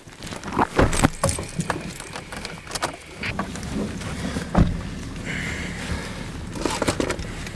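Clicks, knocks and rustling of people getting into a pickup's cab, with a car door shutting in one heavy thump about halfway through, over the low steady hum of the vehicle.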